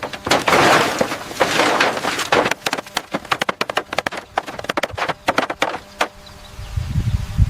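Construction work on wood: rasping, scraping noise, then a rapid, irregular run of sharp knocks.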